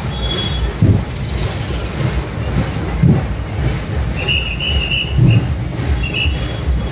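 A vehicle engine running at idle: a steady low rumble with a dull thump about every two seconds. A few brief high chirps sound about halfway through and again near the end.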